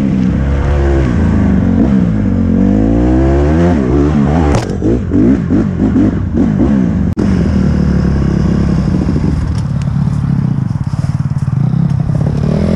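Dirt bike engine revving up and down under throttle while riding, with a run of quick throttle blips and rattling about five seconds in, then running at a steadier pitch for the rest.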